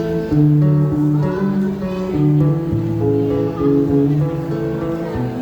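Instrumental break in a song: guitar chords with a bass line, notes held and changing every half second or so, no singing.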